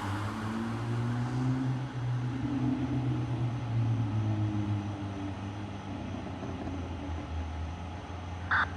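Fire engine's diesel engine running with a steady low drone. A short radio squelch burst comes near the end.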